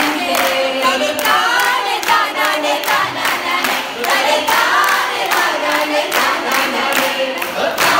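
A hall full of students singing a Malayalam folk song (nadan pattu) together, led by a singer on a microphone, with hand-clapping keeping a steady beat.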